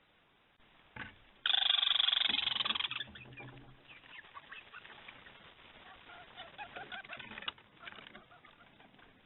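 A bird calling: one loud, harsh call lasting about a second and a half, followed by a run of quieter short calls.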